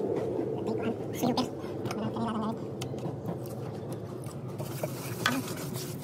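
Wet sponge scrubbing and water sloshing from a bucket, with scattered clicks, over a steady low hum.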